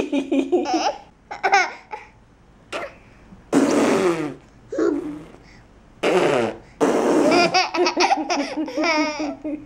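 A baby laughing hard in repeated bursts of giggles, the longest and most rapid run near the end.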